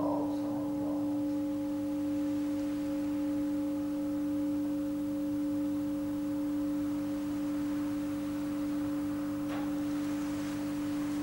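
Large Buddhist bowl bell (keisu) ringing on with a long, steady hum of a few pure tones after the chanting stops, with a soft rustle near the end.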